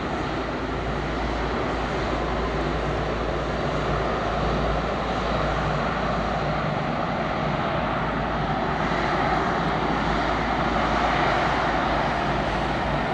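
Boeing 777 twin-engine airliner taxiing past, its turbofan engines at taxi power making a steady jet rumble and hiss that grows a little louder toward the end.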